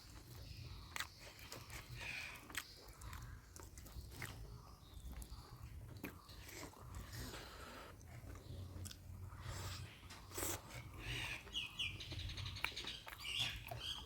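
Close-up eating sounds of a person chewing spicy mutton curry: irregular wet smacking, clicking and chewing.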